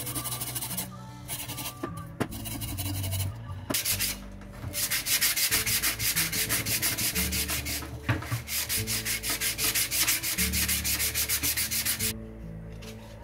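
Rusty steel parts of a small exhaust fan being scrubbed by hand with an abrasive. There is light scratching at first, then quick, even back-and-forth strokes from about five seconds in that stop a second before the end.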